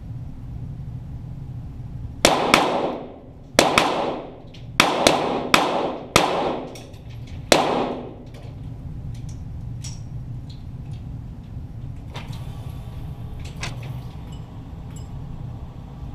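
.22 Walther GSP target pistol shots: a quick string of about nine cracks over some five seconds, each trailing a ringing echo, followed by a few much fainter scattered cracks.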